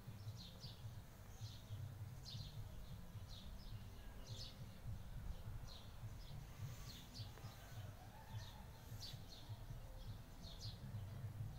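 Small birds chirping: short, high, quick-falling chirps repeated about once or twice a second, over a steady low rumble.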